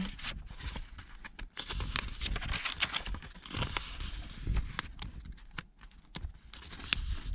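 Pages of a paperback manual being turned and handled: irregular paper rustles and flicks, with a low rumble underneath.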